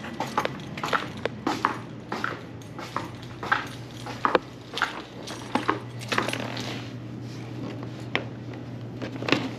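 Irregular light clicks and clatter of small hard objects being handled, over a steady low electrical hum.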